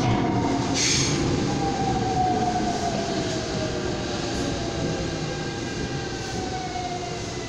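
Seoul Subway Line 5 train heard from inside the car, slowing into a station. A steady rumble of wheels and running gear carries a thin motor whine that falls slowly in pitch as the train brakes, and the whole sound eases gradually.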